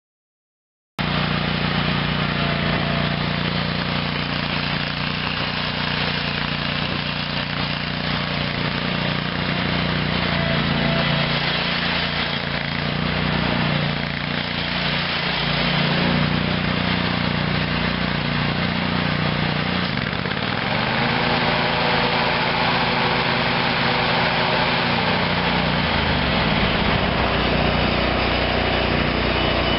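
Kohler 25 HP V-twin gas engine of a Big Dog Black Jack zero-turn mower running steadily; it cuts in suddenly about a second in, and its pitch shifts about two-thirds of the way through and again a few seconds later.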